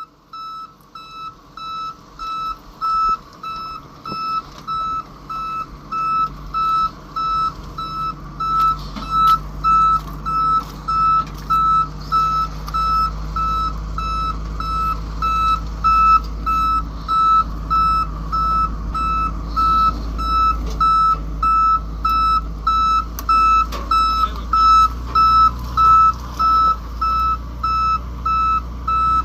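Vehicle reversing alarm beeping steadily, about twice a second, over a heavy truck engine running. Both grow louder over the first several seconds as the vehicle backs up.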